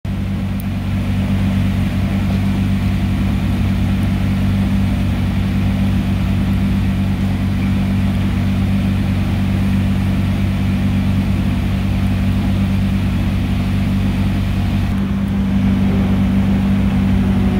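Hyundai Veloster N TCR race car's turbocharged four-cylinder idling: a steady low engine hum that holds one pitch throughout.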